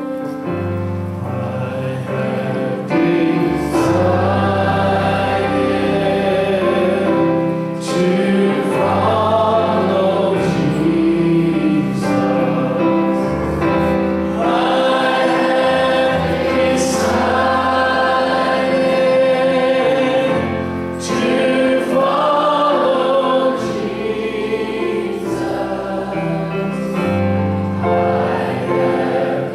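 Congregation singing a slow hymn led by a male song leader, with electronic keyboard accompaniment, in long held phrases.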